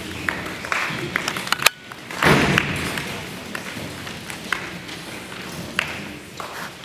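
Scattered knocks, taps and thumps as props are handled and set down on a hollow stage riser, over a murmur of voices in a large hall, with a brief louder burst of noise about two seconds in.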